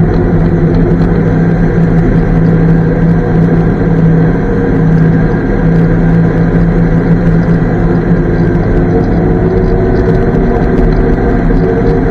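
Daimler Ferret armoured car's Rolls-Royce B60 straight-six petrol engine running steadily under way, heard from on board. The engine note holds level, with a brief dip about four seconds in.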